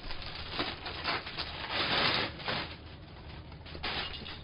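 Plastic packaging crinkling and rustling as it is handled and pulled off a light stand, with a few small knocks; loudest about two seconds in.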